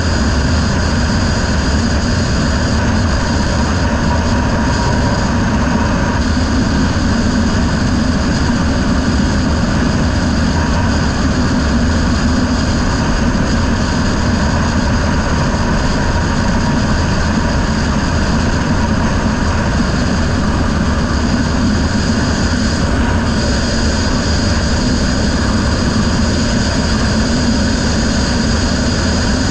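Racing riverboat's outboard motor running steadily at speed, a constant engine drone under a dense rushing noise, heard from a helmet-mounted microphone.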